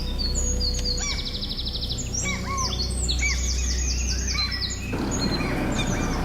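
Several birds chirping and calling in short arched notes, with a fast trill about a second in, over a steady low rumble; the calls thin out near the end.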